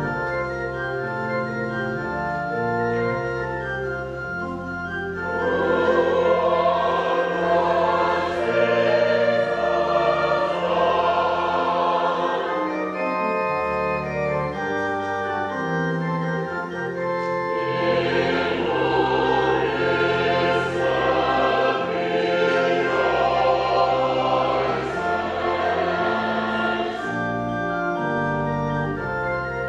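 Organ playing a hymn in held chords, with singers joining in from about five seconds in to about twelve, and again from about eighteen to twenty-seven seconds in.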